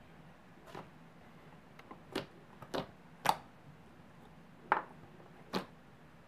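Thick yellow slime being pressed and squished by hand, giving a handful of short, sharp pops and clicks spaced irregularly over a few seconds.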